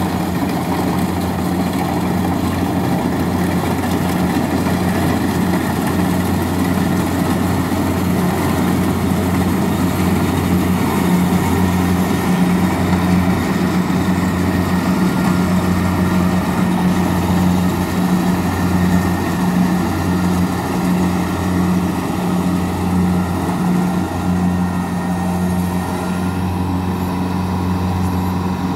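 Kubota DC-70 rice combine harvester running steadily while it harvests rice, its engine and machinery giving a constant low drone.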